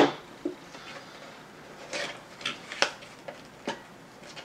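Small cardboard CPU retail box being opened by hand: a sharp click right at the start, then a few scattered clicks and rustles of cardboard as the lid and inner packaging are handled.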